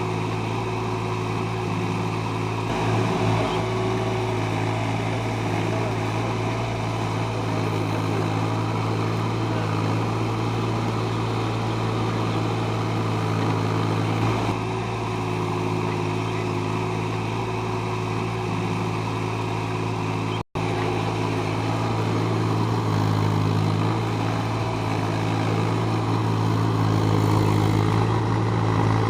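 A JCB 30 Plus mini excavator's diesel engine runs steadily, with little change in pitch. It drops out for an instant about two-thirds of the way through.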